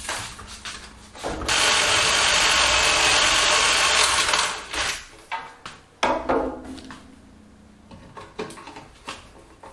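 Cordless drill running steadily for about three seconds while drilling into the black steel stovepipe elbow where it joins the chimney adapter, then stopping. Small metal clicks and knocks follow.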